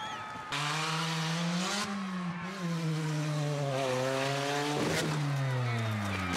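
Small Honda hatchback's petrol engine running at full throttle on a run-up to a jump, its note climbing early then wavering high. There is a short sharp knock about five seconds in, and the engine note falls steadily after it.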